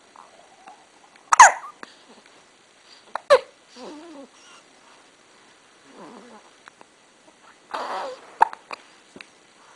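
A baby hiccuping: two sharp hiccups about two seconds apart, the first the loudest, then soft babbling sounds. A breathy burst with another hiccup comes near the end.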